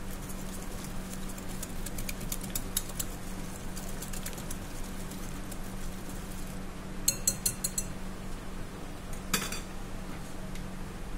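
Wire whisk beating a thin batter in a glass bowl, its wires ticking lightly against the glass over a steady low hum. About seven seconds in comes a quick run of half a dozen sharper clinks, then a single louder knock a little after nine seconds.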